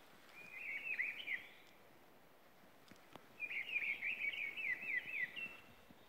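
A small songbird singing two phrases of quick, down-slurred notes: a short phrase about half a second in and a longer one from about three seconds in, ending on a brief held note.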